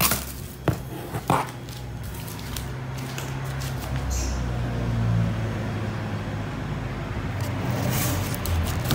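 Scissors snipping the plastic packing straps on a large cardboard box, three sharp snips in the first second and a half, then a steady scraping against the cardboard and tape over a low hum.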